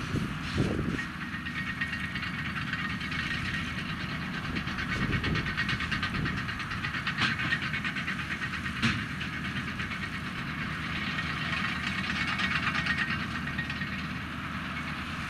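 Heavy diesel farm machinery running steadily, with a fast mechanical clatter over a low rumble and two sharp knocks partway through.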